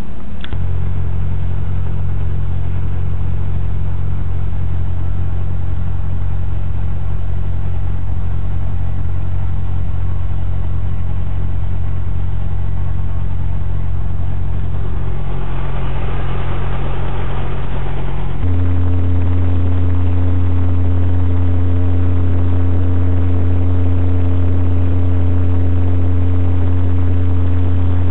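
Robinson R22 helicopter's piston engine and rotor running steadily, heard from inside the cockpit as a loud low drone of steady tones. About two-thirds of the way through, the tone changes abruptly and gets slightly louder.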